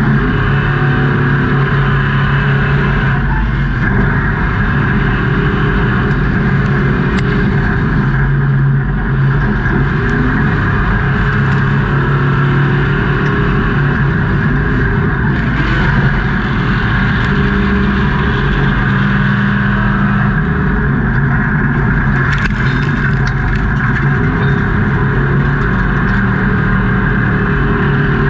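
Off-road racing truck engine running hard at high revs, loud and steady, with small shifts in pitch.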